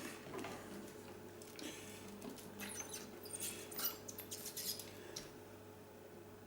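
Small scratching and clicking of a tool working inside a PL259 coax plug, clearing a blockage left from desoldering so the centre core can pass through. The scratches come in a cluster from about a second and a half in to past five seconds, over a faint steady hum.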